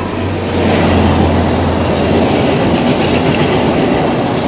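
VIA Rail EMD F40PH diesel locomotive, with its 16-cylinder two-stroke engine, and its passenger train passing at speed: a steady low engine drone under the loud rush and clatter of wheels on rail.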